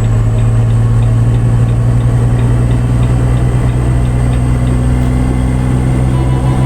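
Truck diesel engine running steadily at an even pitch, with a faint regular ticking over it.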